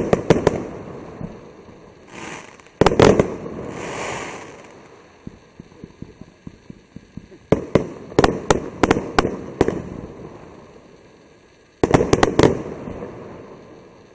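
A firework cake fires its shots in salvos of sharp bangs: one at the start, another about three seconds in, a rapid string around eight to ten seconds, and another about twelve seconds in. Between the salvos there is hissing and light crackling as the stars burn out.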